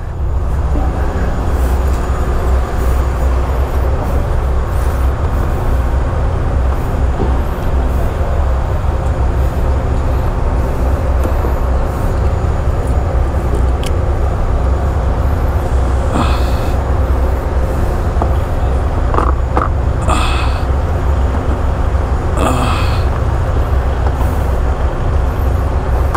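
Steady low drone of a large engine running continuously, with three short hisses about two-thirds of the way through and near the end.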